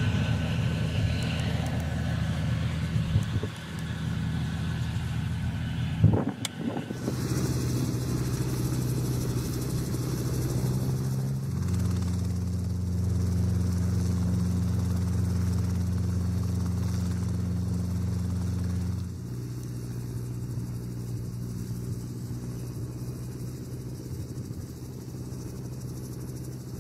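Mil Mi-2 helicopter's twin turboshaft engines and main rotor running, a steady low drone that shifts abruptly in pitch and level several times. A sharp knock about six seconds in is the loudest moment.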